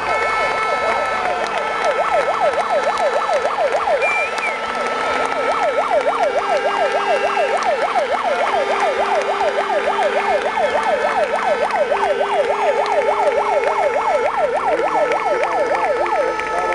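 Spectators' horns: a siren-like horn warbling rapidly up and down, about five times a second, over several steady horn tones at different pitches, with a lower horn sounding in a few long blasts partway through.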